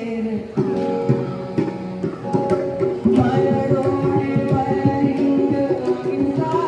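A patriotic song: a singing voice over sustained instrumental chords, with a steady drum rhythm that comes in about half a second in.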